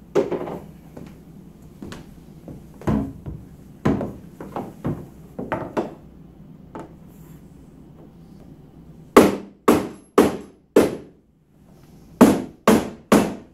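Knocks and clunks of the plastic cart door being fitted into place. Then a rubber mallet taps the door's hinge pieces down into the plastic cart frame: four sharp strikes about half a second apart, a short pause, then three more.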